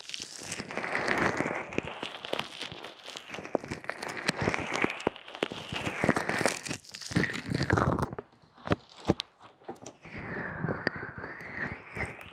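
Ear-massage ASMR: hands rubbing and squeezing right against a microphone, a close, crinkly rustling full of small clicks. It breaks off about eight seconds in, and a softer rubbing follows.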